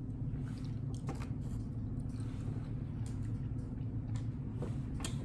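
A man chewing food, with a few scattered wet mouth clicks and smacks over a steady low hum.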